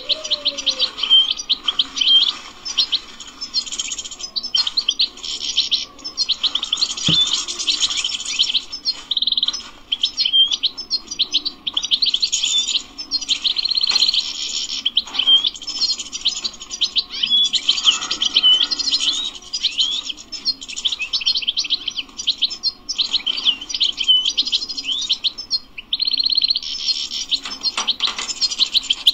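European goldfinch singing: a fast, continuous twitter of high chirps and trills with only brief pauses.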